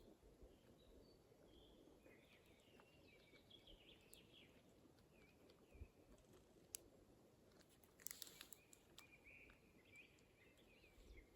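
Near silence: faint forest ambience with distant small birds calling in short chirps and warbles, and a brief rustle about eight seconds in.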